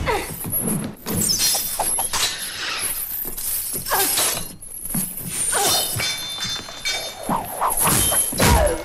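Film fight sound effects: a spiked steel ball on a chain (a meteor hammer) swinging and striking, with the chain rattling and repeated sharp impacts and smashing, breaking sounds.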